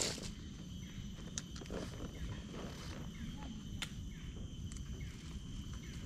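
Forest ambience: a low rumble with a steady high-pitched hum, repeated soft chirps about once a second and a few sharp clicks.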